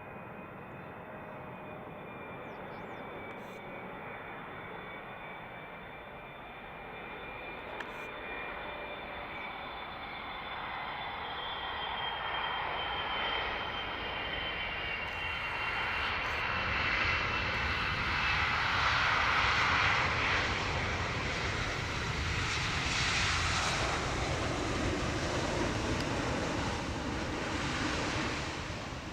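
Boeing 777-300ER's GE90 turbofans on landing approach: a steady jet whine with high tones falling slightly in pitch, the noise building as the airliner comes closer, loudest about two-thirds of the way in, and easing just before the end.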